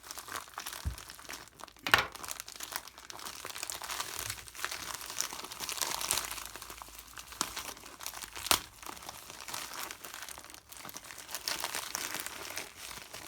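Packaging crinkling and tearing as a shipping package is cut and pulled open with a knife, with two sharp snaps, one about two seconds in and one past the middle.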